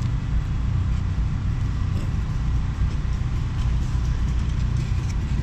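Steady, uneven low rumble with outdoor background noise, and no distinct single event.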